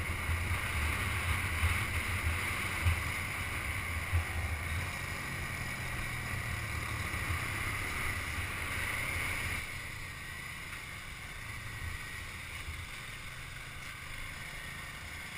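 Wind rushing and buffeting over the microphone of a camera on a moving Kawasaki dirt bike, with the bike's engine running underneath. The buffeting eases somewhat about ten seconds in.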